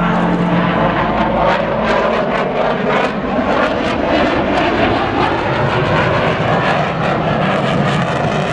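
An RSAF F-15SG fighter jet's twin jet engines, a loud steady roar with a rapid crackle running through it.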